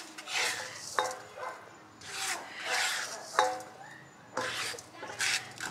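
Plastic spatula scraping and stirring a dry ground ingredient across a non-stick wok, in three spells of scraping. It knocks sharply against the pan twice, about a second in and midway through.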